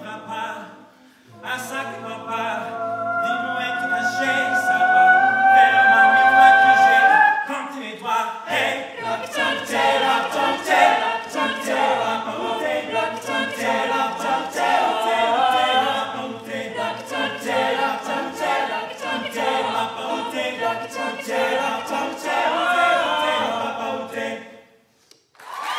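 A cappella vocal group singing in close harmony: a long held chord with sustained upper lines for several seconds, then a rhythmic passage with vocal percussion keeping a steady beat. The singing cuts off abruptly near the end.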